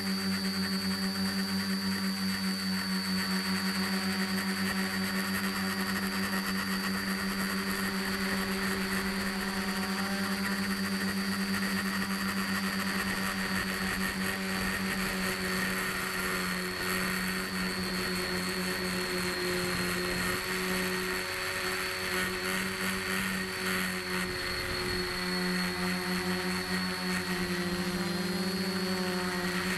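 Quadcopter's electric motors and propellers running in flight, heard close from a camera strapped to the airframe: a steady buzzing hum with a high whine over it, wavering in pitch about three-quarters of the way through.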